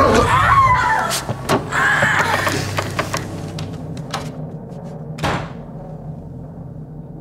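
A violent struggle: a voice cries out over the first few seconds amid several sharp bangs and thuds, the last of them about five seconds in, then the sound slowly dies away.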